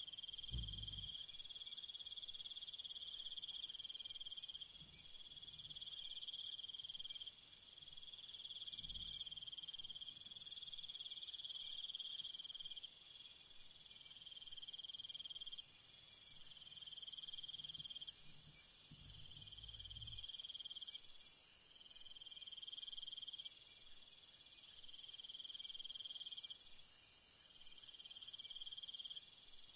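Crickets chirring at night in dense, continuous high trills, several layered at different pitches, each swelling and easing every few seconds. A few faint low thumps come near the start, about a third of the way in, and again around two-thirds of the way in.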